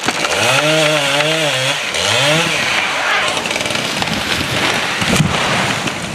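Two-stroke chainsaw running hard at full throttle in a cut, its engine note rising and wavering through the first two seconds, then settling under a steady harsh cutting noise.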